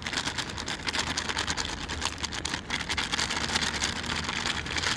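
Plastic zip-top bag rustling and crinkling in a quick run of fine crackles as it is handled and filled with dry cake mix, over a low steady hum.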